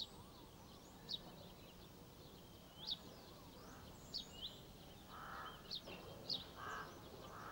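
Faint birdsong ambience: short high chirps about once a second, with a few harsher caw-like calls in the second half.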